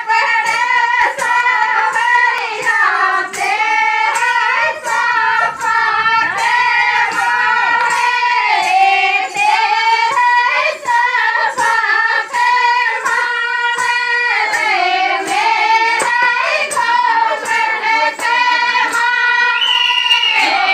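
A high female voice singing a Rajasthani folk song, with sharp claps keeping a steady beat about twice a second.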